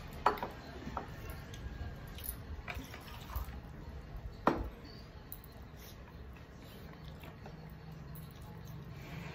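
Hand-eating sounds: fingers mixing rice and curry on plastic plates, with chewing and a few sharp clicks, the loudest about four and a half seconds in.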